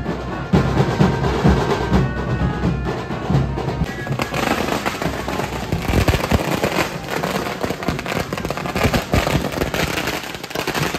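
Music with heavy drumbeats, then from about four seconds in firecrackers burst on the street in a rapid, crackling run of bangs.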